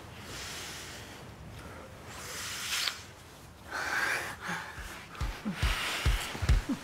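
Close, heavy breathing and gasps of two people kissing. About five seconds in, a deep drum beat begins, about two beats a second.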